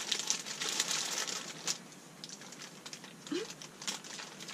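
Brown paper bag crinkling and rustling as a hand rummages in it for food, densest in the first second or so, then thinning to scattered light crackles.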